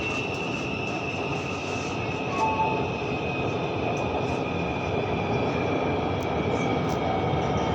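Metro train running between stations, heard from inside the carriage: a steady rumble of wheels on track with a thin whine that slowly falls in pitch.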